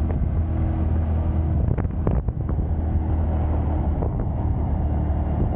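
2023 Honda Grom's small single-cylinder engine running steadily at cruising speed under way, mixed with a rush of wind and road noise.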